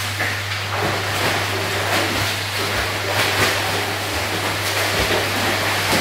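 Swimmers' kicks and arm strokes splashing through pool water, in an irregular run of splashes, over a steady low hum.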